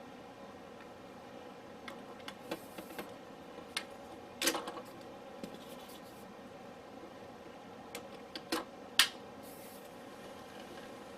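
Scattered sharp clicks and knocks of parts of a cordless stick vacuum being handled and fitted together, loudest about four and a half and nine seconds in, over a faint steady hiss; the vacuum is not running.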